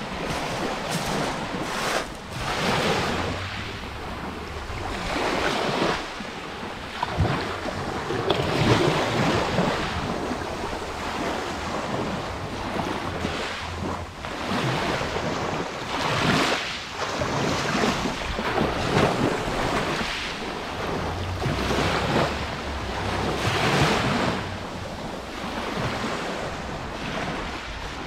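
Black Sea waves washing in on a fine-pebble beach, surging and drawing back every few seconds, with wind buffeting the microphone.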